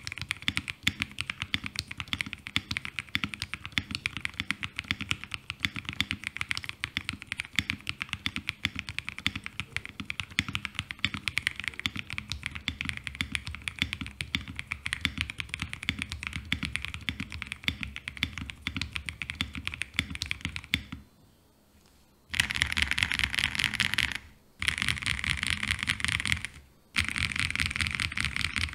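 Leobog K81 mechanical keyboard, modded with lubed switches, being typed on in a steady, fast stream of keystrokes. After about 21 seconds it stops for a second, then comes back as louder, denser runs of rapid typing, broken twice by short pauses.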